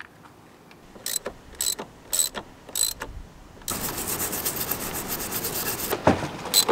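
Ratchet wrench clicking while the light bar's positive wire is fastened to the battery terminal: four short strokes about half a second apart, then a longer run of fast ratcheting, ending with a sharp knock.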